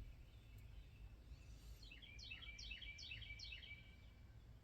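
Near silence with a faint bird call: a run of about six quick, repeated downward-sweeping chirps starting about two seconds in.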